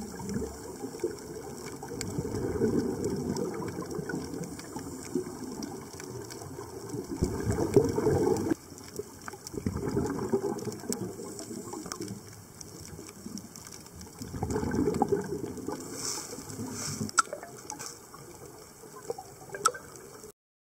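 Underwater recording of scuba regulator exhaust: bubbling, rushing water noise that swells in surges several seconds apart, like exhalations, with scattered faint clicks. It cuts off abruptly just before the end.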